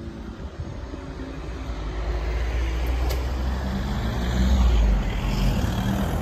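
Cars and a lorry drive off across a railway level crossing. The engine rumble builds and is loudest about four to five seconds in.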